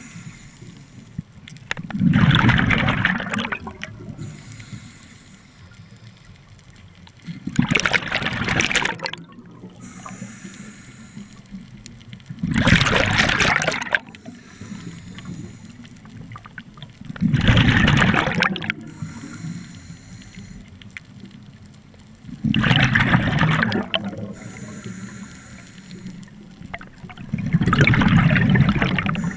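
Scuba diver breathing through a regulator: a loud rush of exhaled bubbles about every five seconds, six times, each lasting about a second and a half, with quieter water noise between breaths.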